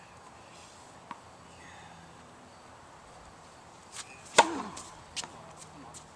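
A tennis serve struck with an old ProKennex Black Ace racket: one sharp, loud crack of strings on ball about four seconds in, ringing briefly. A faint tap comes about a second in, and a few fainter taps follow the hit.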